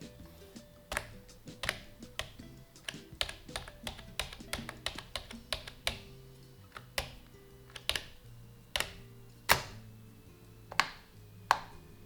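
Key presses on an Aula F2028 membrane keyboard: a string of irregular clicks, quick in the first half, then a few louder, spaced-out single presses toward the end. Soft background music runs underneath.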